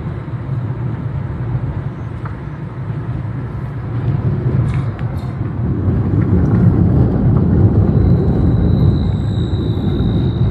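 Moving vehicle's steady low road rumble from the engine and tyres on a rough rural road. It grows louder about halfway through, and a faint high whine joins near the end.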